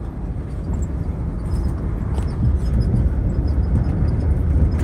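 A vehicle driving along a bumpy unpaved road: a steady low rumble of engine and tyres, growing slightly louder, with a few faint rattles.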